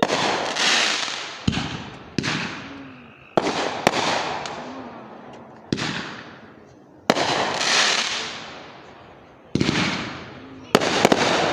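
Fireworks going off: a quick series of sharp bangs, about one every second or two, each followed by a crackling hiss that fades away.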